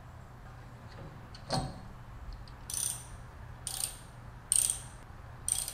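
A socket ratchet wrench clicking in four short bursts as the cylinder head bolts of a snowblower engine are run down, after a single knock about a second and a half in.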